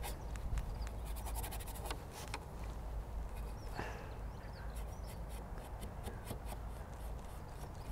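Bristle brush dabbing and scraping thick oil paint onto a painting board: a run of dry, scratchy clicks, densest a little after a second in, over a low steady rumble.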